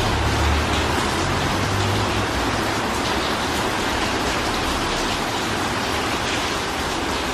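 Steady rain splashing onto a wet tiled floor covered in standing water, an even hiss of many drops. A low rumble runs underneath for the first two seconds or so.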